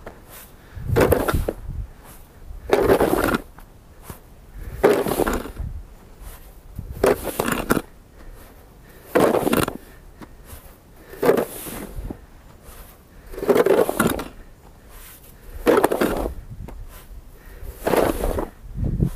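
Snow shovel blade pushing through snow and scraping along the ground beneath, in repeated strokes about every two seconds, nine in all.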